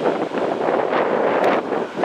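Wind buffeting the camcorder microphone: a loud, gusty rushing noise that rises sharply at the start and wavers throughout.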